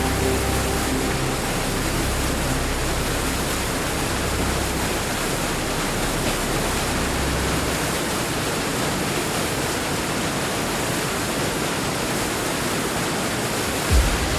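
Steady, even rushing roar of a waterfall. A low rumble sits under it for the first half, and there is a short low thump near the end.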